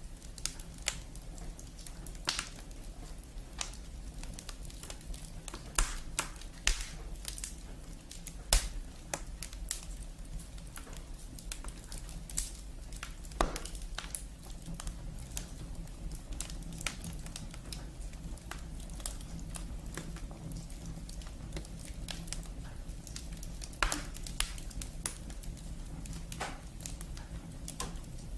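Wood fire crackling: burning firewood giving off irregular pops and snaps, a few of them sharper and louder, over a low steady hum.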